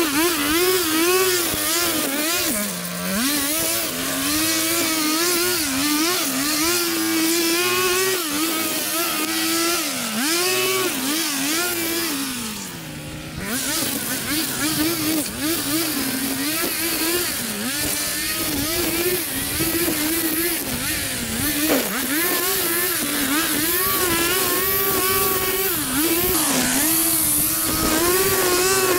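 Small gasoline engine of lawn-care equipment running, its pitch wavering up and down constantly as the throttle or load changes. It sags deeply three times, most of all about thirteen seconds in, where it also briefly goes quieter.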